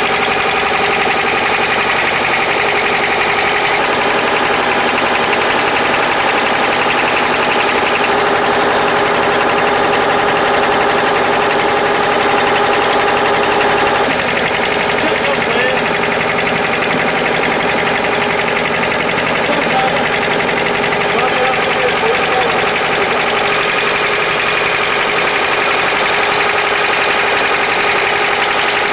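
An engine running steadily, its even drone carrying a few held tones; the tones shift slightly about halfway through.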